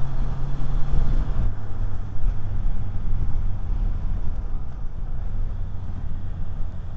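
Motorcycle engine running under way, with wind rush, heard through a lavalier mic inside the rider's helmet; the engine note drops a little about a second and a half in.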